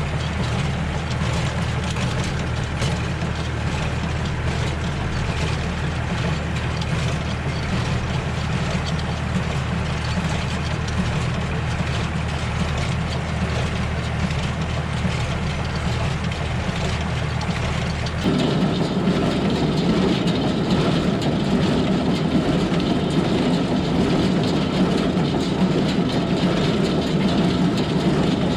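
Tractor engine running steadily. About eighteen seconds in, the sound switches abruptly to a louder, different engine note.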